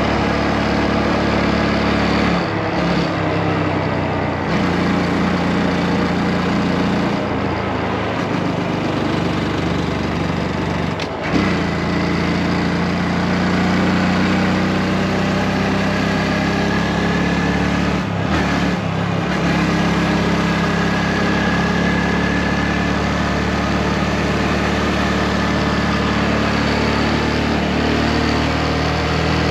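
Motorcycle engine running under way, with a steady rush of wind over it; the engine note drops out briefly a few times, about three seconds in, near the middle and again a little later, as for gear changes or easing off the throttle.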